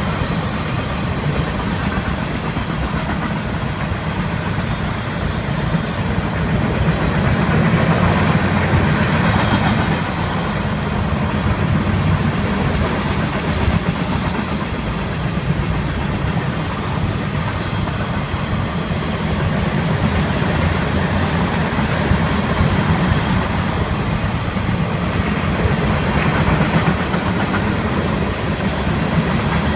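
Florida East Coast Railway freight cars (boxcars and tank cars) rolling past: a loud, steady rumble of steel wheels on the rails.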